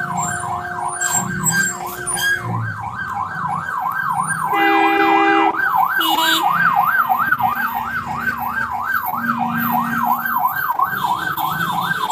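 An emergency vehicle siren in a fast yelp, sweeping up and down about two to three times a second. A vehicle horn sounds for about a second near the middle, with a shorter blast soon after.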